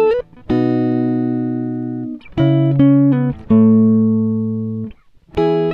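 Background music: a slow run of plucked chords, four in all, each struck sharply and left to ring out and fade.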